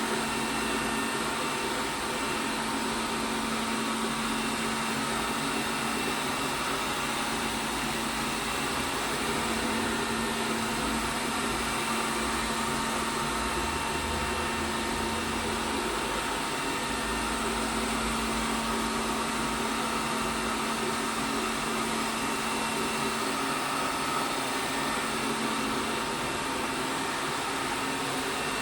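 ELARI SmartBot Lite SBT-002A robot vacuum cleaner running, its motor whirring steadily with a constant hum.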